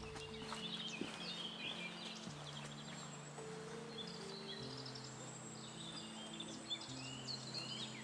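Forest birdsong: several small birds chirping and trilling, over soft background music of slow, sustained low notes that change pitch every second or two.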